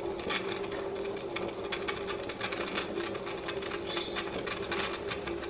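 Water boiling hard in a stainless-steel saucepan on a gas stove: steady, rapid bubbling and ticking over a steady hum.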